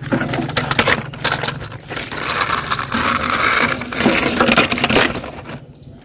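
Toys being handled: irregular clattering, rattling and scraping with many small knocks, easing off near the end.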